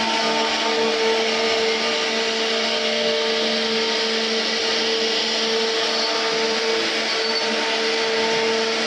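A 3-axis CNC router's spindle running steadily as the bit carves wood: a constant whine over an even rushing noise from the cut.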